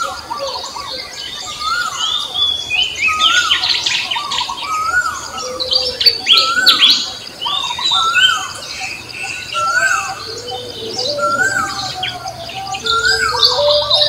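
A chorus of songbirds chirping and calling. One bird repeats a short rising-and-falling whistled note about every second and a half, while others add quicker, higher chirps over it.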